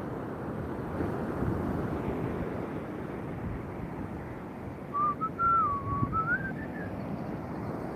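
Steady rush of surf, with wind on the microphone. About five seconds in, a short whistled phrase of a single wavering note rises at the end and lasts about two seconds.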